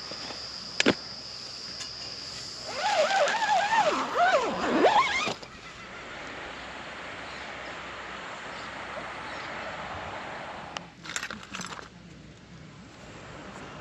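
An animal calling in a run of wavering, pitched calls that glide up and down for about two and a half seconds. Earlier, a steady high tone sounds against a background hiss, and a few knocks come near the end.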